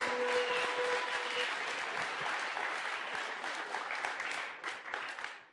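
An auditorium audience applauding, the clapping thinning out and dying away near the end.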